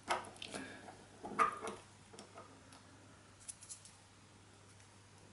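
Small clicks and handling noises of multimeter probes and a plastic injector connector being fiddled into contact, loudest just after the start and again about a second and a half in, with a few faint ticks near the middle.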